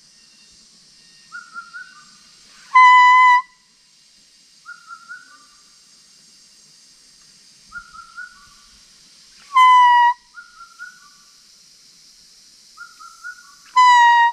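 Hunter's bamboo game call blown three times, each a loud, reedy whistled note about half a second long that dips slightly in pitch at its end, used to lure game. Between the calls come fainter, short rising chirps in twos and threes.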